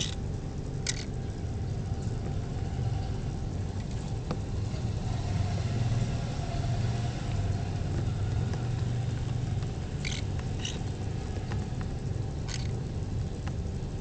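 Steady low hum from a small electric fan, with short harsh chirps from pineapple conure chicks: two at the start and a few more in the last four seconds.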